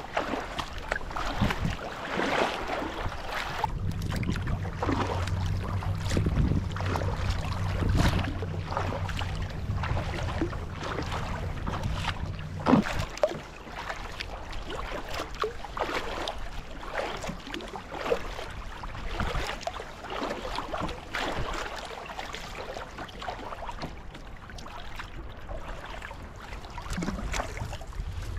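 Kayak paddle strokes, the blades dipping and splashing into calm sea water about once every second or so, with some wind on the microphone. A low steady hum runs underneath for the first dozen seconds and then stops suddenly.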